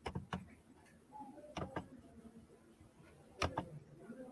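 A few soft, scattered knocks and clicks, the loudest near the end, heard over a quiet video-call line.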